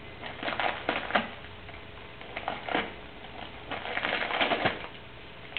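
A cat ripping and crumpling brown packing paper: the paper crackles in three separate bursts of about a second each.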